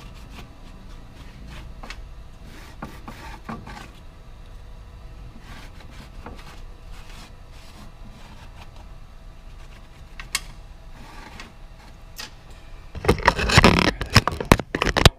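Scraping and rubbing with scattered small clicks as transmission parts are cleaned and handled. About thirteen seconds in comes a loud burst of clattering that cuts off suddenly.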